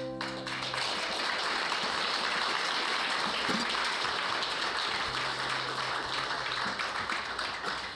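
Audience applauding steadily while the last acoustic guitar and mandolin chord fades out within the first second.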